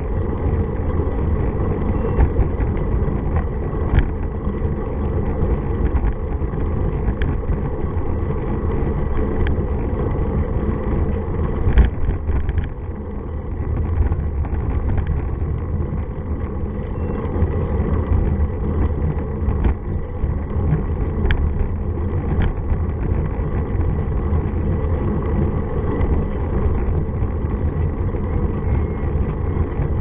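Wind rushing over the microphone of a bicycle-mounted camera while riding: a steady low rumble, with a few short knocks from the road.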